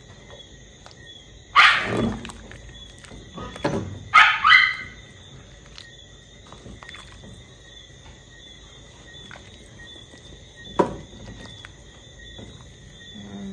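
A dog barks a couple of times and gives a short rising yelp about four seconds in, begging. A single sharp knock, like a spoon against the pot, comes near the end.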